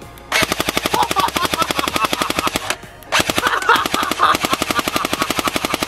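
A 25-year-old G3SG1 airsoft electric gun, fitted with a T238 electronic trigger unit and triggered by a remote control, firing two long bursts of rapid automatic fire with a short pause between them.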